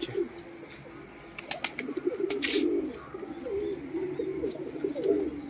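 Domestic pigeons cooing, a low wavering burble that starts about a second and a half in and runs on nearly to the end, with a few sharp clicks and a brief hiss in the middle.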